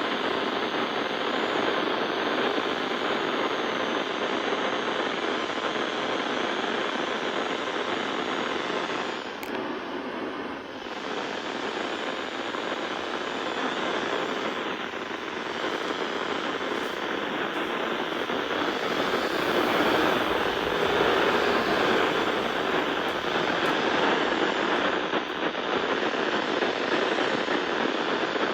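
Steady hiss of static from a radio receiver carrying dead air, with no broadcast audio. It dips briefly about ten seconds in.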